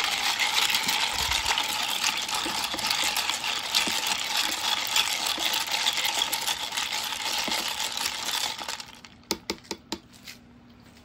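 Ice cubes clinking and rattling against a plastic container and a metal spoon as the avocado milk drink is stirred quickly. The stirring stops near the end, leaving a few single clicks.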